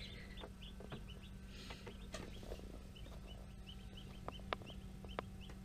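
Newly hatched chicks peeping faintly and repeatedly, short falling peeps several a second, over a steady low hum. A few sharp taps sound in the second half.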